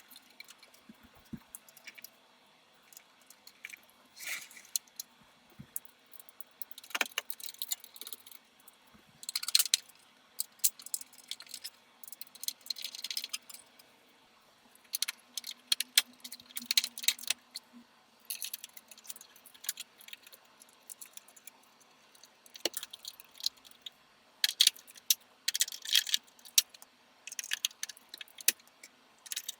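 Small metal parts of a desktop PC being handled during hand assembly, clinking and clattering in irregular bursts with short pauses between them.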